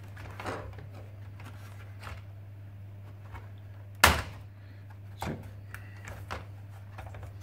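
Plastic retaining clips of a laptop's top case snapping loose as the case is prised up around its edge: a few light clicks, one loud sharp snap about four seconds in and a smaller one a second later.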